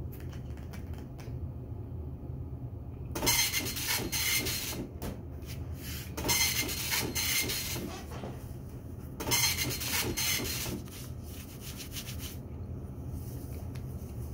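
Old office printer running in two noisy, rattling stretches, the first starting about three seconds in and lasting some five seconds, the second starting about nine seconds in and lasting about three, over a steady low hum.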